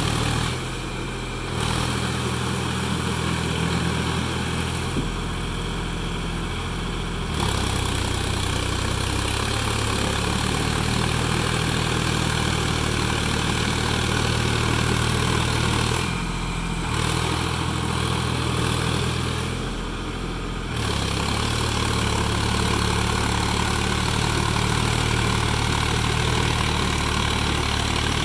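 Sonalika tractor's diesel engine running while pulling a rotary tiller through mud. The engine note drops and changes pitch briefly a few times, about a second in, near the middle and around two-thirds of the way through.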